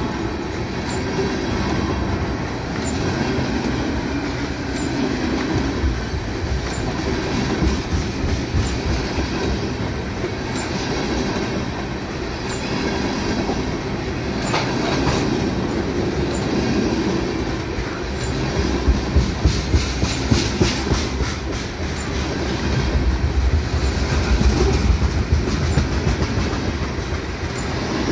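Freight train cars rolling past at close range, steel wheels on the rail making a steady rumble with rhythmic clacking; a quick run of sharp clacks comes about two-thirds of the way through.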